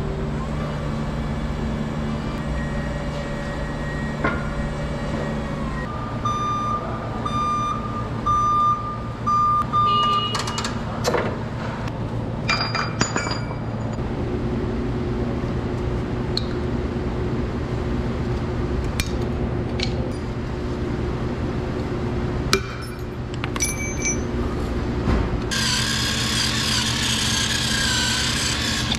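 Forklift engine running at a steady low hum, with a repeated high electronic beep about once every 0.8 s for several seconds. Metal clinks from snap-ring and bearing work follow. For the last few seconds a handheld rotary power tool runs loudly against the steel bearing shaft.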